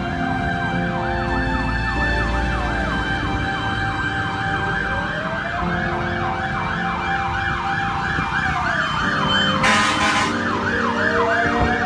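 Emergency vehicle sirens: one yelping fast, about three cycles a second, over a second siren's slow rising and falling wail. A short burst of hiss comes about ten seconds in.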